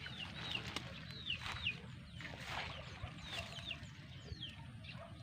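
Chickens calling, a string of short, high chirping calls repeating throughout, over a faint low rumble.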